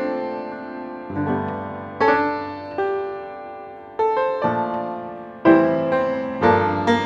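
Background piano music: chords struck every second or two, each note ringing and fading.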